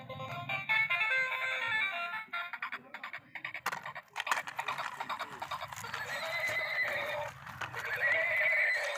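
Electronic sounds from a battery-operated walking toy horse: a tinny electronic tune for the first few seconds, then a recorded horse whinny with a wavering pitch from its speaker through the second half.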